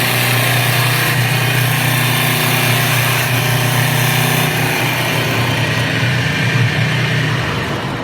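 CNC wood-turning lathe running steadily: a constant low motor hum under a dense, even cutting noise, easing slightly near the end.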